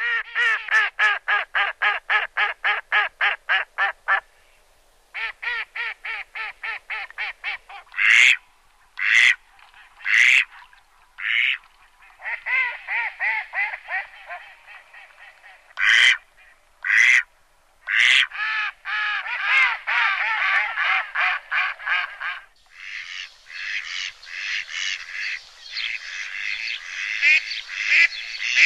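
Duck quacks in long, evenly spaced runs of about four a second, broken by single loud calls about a second apart. A denser, higher chatter of calls fills the last few seconds.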